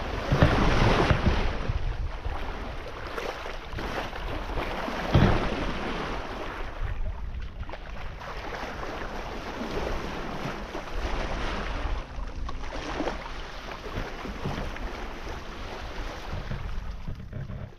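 Wind buffeting the microphone over the rush of water along a sailing yacht's hull as it sails, with louder gusts about half a second in and around five seconds.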